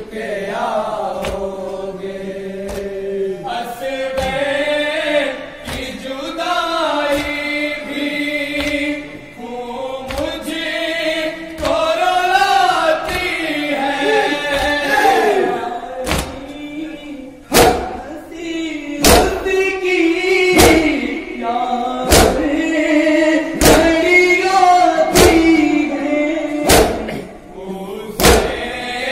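Voices chanting a nauha, a Shia lament, in unison, with rhythmic chest-beating (matam): sharp hand slaps that grow loud from about halfway, about one every second and a half.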